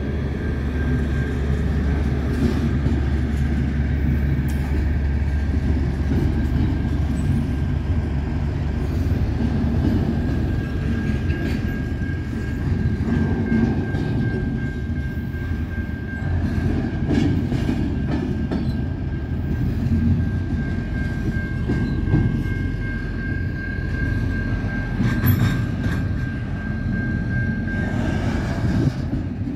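Freight train cars rolling past with a steady low rumble and irregular wheel clacks and knocks. A thin, steady wheel squeal runs through it, joined in the second half by a second, higher squeal.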